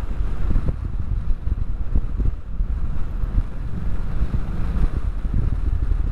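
Wind buffeting the microphone over the low rumble of a Harley-Davidson Street 500's V-twin engine, cruising steadily along a street.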